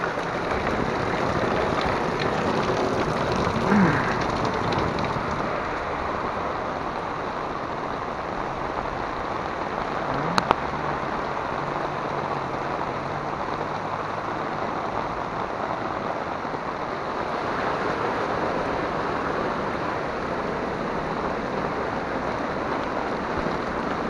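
Heavy rain falling steadily onto a flooded street, with water running over the road. A single short, sharp click about ten seconds in.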